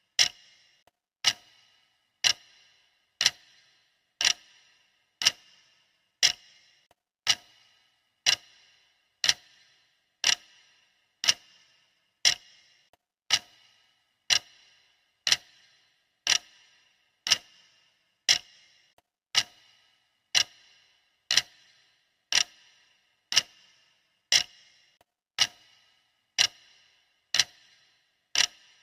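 Clock ticking sound effect: one sharp tick per second, steady and even.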